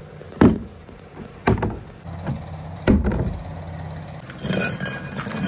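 Large blue plastic tub knocked and set down on asphalt: three hollow thumps, about a second apart. Near the end a steady machine-like drone starts up.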